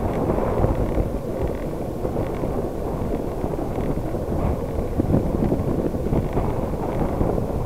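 Wind rumbling steadily over the microphone of a handlebar-mounted camera on a moving bicycle.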